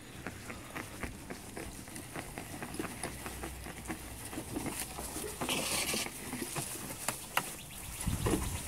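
Scotts AccuGreen 3000 drop spreader pushed across grass: a steady run of light, irregular clicks and rattling as it rolls and drops fertilizer granules, with a short hiss a little past halfway.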